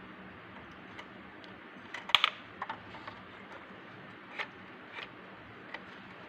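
Scattered light clicks and taps of hands handling a small homemade model harvester, with a quick cluster of the loudest clicks about two seconds in, over a faint steady hum.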